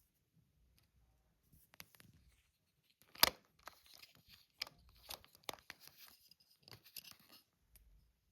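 Scattered handling noises: rustling and a string of sharp clicks, with one loud click about three seconds in.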